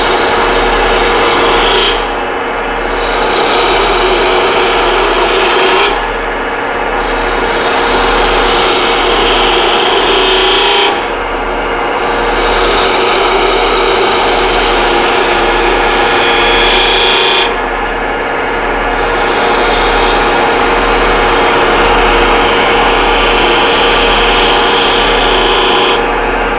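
A detail gouge cutting a spinning wooden spindle on a wood lathe: a continuous shearing hiss of the edge peeling off shavings, over the steady hum of the lathe. The cut eases off for a moment every few seconds, then carries on.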